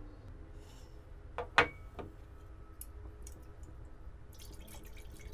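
Glassware handled while oil is poured into a tall glass of water: a small glass bowl knocks down onto the wooden table about a second and a half in, with a light glass clink just after. From about four seconds in come rapid faint clicks and tinkles from the glass of water.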